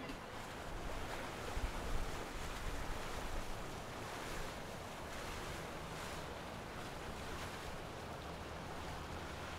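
Water rushing along the hull and wake of a passing outboard-powered boat, with a low steady rumble underneath. Wind buffets the microphone in gusts about two seconds in.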